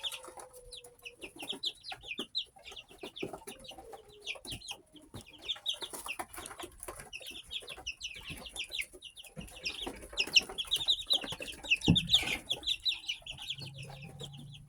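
Young chickens peeping continually, many short high notes sliding down in pitch and overlapping, with scattered sharp clicks among them.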